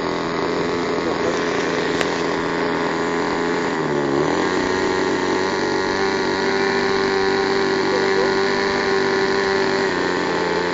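.46-size two-stroke glow model-airplane engine on 10% nitro fuel, running steadily. Its pitch dips briefly about four seconds in, then holds even, with a single sharp click near two seconds in.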